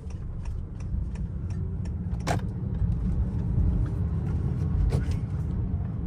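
Turbocharged 2.0-litre four-cylinder of a 2019 Honda Accord, fitted with a PRL high-volume intake, running while the car is driven. Its low rumble grows steadily louder, and a couple of sharp clicks come through, one a little over two seconds in and one about five seconds in.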